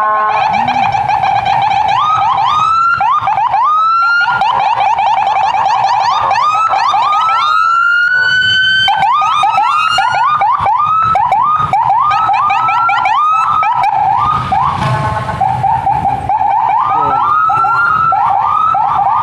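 Several police motorcycle escort sirens sounding at once, each repeating a quick rising whoop so that they overlap into a continuous wail. About eight seconds in, one siren holds a longer rising sweep.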